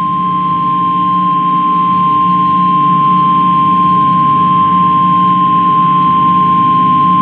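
Emergency alert warning tone: the single steady pitched tone of a weather-radio flash flood warning, held unbroken, with a low hum and hiss underneath.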